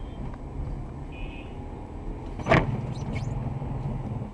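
A car driving, heard from inside the cabin: a steady low engine and road rumble, with one sharp knock about two and a half seconds in and a few faint ticks just after.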